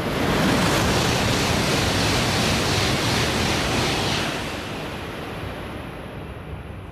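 Shinkansen bullet train passing through the station at high speed without stopping: a loud rush of air and rolling wheels that holds for about four seconds, then fades steadily as the train draws away.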